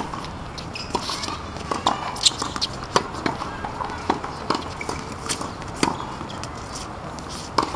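Tennis rally on a hard court: racquet strikes on the ball, ball bounces and players' footsteps, heard as a string of sharp knocks, often less than half a second apart.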